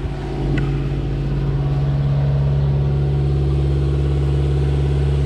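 Sailboat's inboard diesel engine running steadily under way: a constant low drone that grows louder over the first two seconds as it is heard from below deck, then holds steady.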